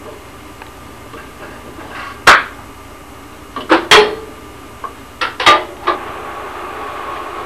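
A series of sharp knocks or bangs: one about two seconds in, a quick cluster around four seconds in, and three more shortly after. A steady faint hum follows them near the end.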